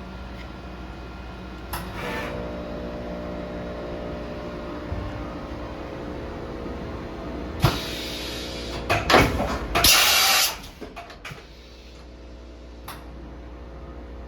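Hardinge Bridgeport 1000 XP3 CNC vertical machining center running with a steady hum and whine. About eight to ten seconds in there are a series of mechanical clunks and a loud burst of air hiss, and after them the machine runs on more quietly.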